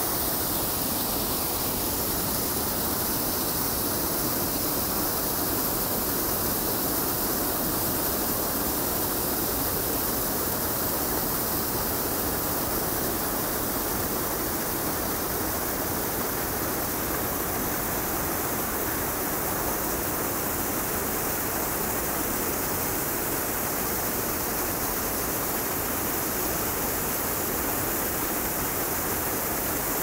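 Pond outlet waterfall pouring in a steady, unbroken rush of water, running high and full after heavy rain.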